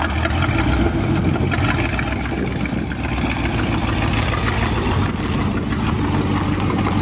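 1979 Chrysler New Yorker's V8 engine running at low speed with a steady, low note that shifts slightly about five seconds in.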